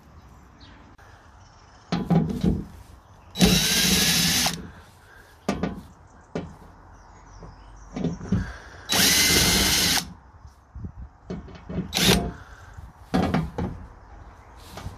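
Cordless drill-driver spinning a fixing in a steel pickup tailgate panel in two bursts of about a second each, its motor whine rising as it spins up, with short knocks and clatter of the tool and parts between.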